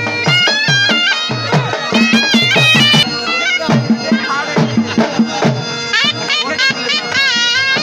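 Saraiki folk dance music: a reed wind instrument plays a wavering, ornamented melody over a steady drum beat.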